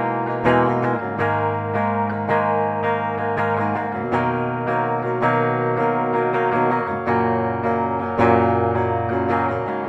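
B.C. Rich Virgo electric guitar played through its bridge humbucker with a clean tone: chords and single notes picked one after another, each left to ring.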